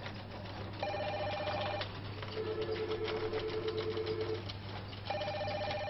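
Electronic telephone ringing in a repeating pattern: a higher two-tone chime for about a second, a lower warbling two-tone ring for about two seconds, then the higher chime again near the end, over a steady low hum.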